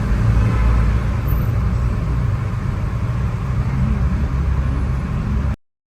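Steady low rumble of road traffic: vehicle engines and tyre noise, with no speech. It cuts off abruptly near the end.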